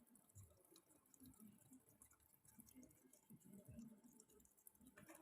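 Near silence: faint room tone with a few soft, brief low sounds.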